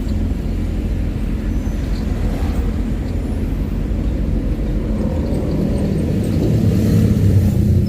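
Steady low rumble of a moving vehicle, its engine and road noise, swelling slightly near the end.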